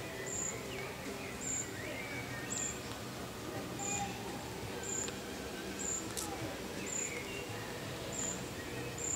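Outdoor ambience with birds chirping. A short, very high chirp repeats about once a second, and a faint steady low hum runs beneath.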